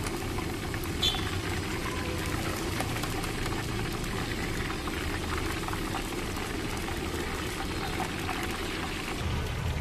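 Hot oil sizzling and bubbling steadily in a large iron kadai as batter-coated chicken pieces deep-fry, with a short clink about a second in.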